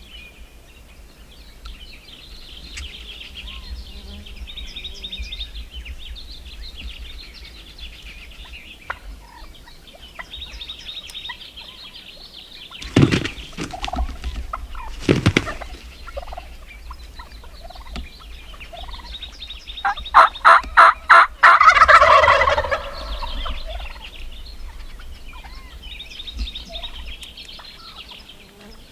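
Wild turkey gobblers gobbling: one loud, rapid, rattling gobble lasting a few seconds, about two-thirds of the way in. Faint high chattering runs underneath, and two sharp knocks come a couple of seconds apart near the middle.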